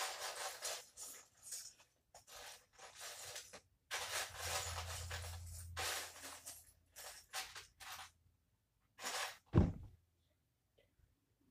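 Plastic Lego bricks clattering and rustling as pieces are rummaged through by hand, in a dense run of short rattles that thin out, then one heavy, dull thump near the end.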